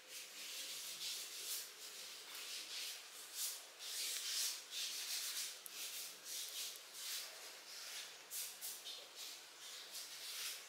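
Hand sanding: abrasive paper rubbed back and forth in quick strokes, about two a second.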